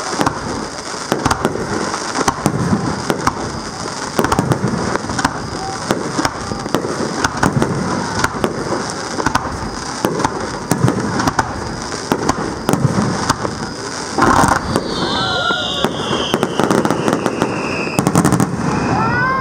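Fireworks finale: aerial shells bursting in a rapid, overlapping barrage of bangs and crackle, with no break.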